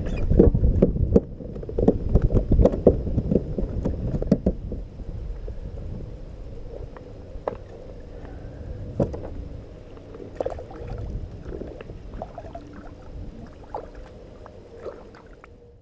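Water sloshing against a kayak hull with scattered knocks and clicks on the boat. It is loudest for the first four seconds or so, then quieter.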